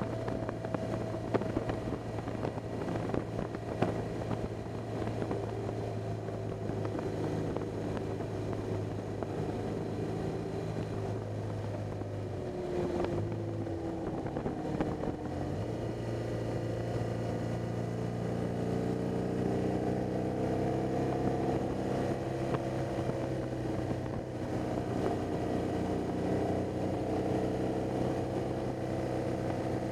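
BMW R 1200 GS flat-twin boxer engine running at road speed, with wind noise over the bike-mounted microphone. About twelve seconds in the engine note drops and falters, then settles again and slowly rises a few seconds later.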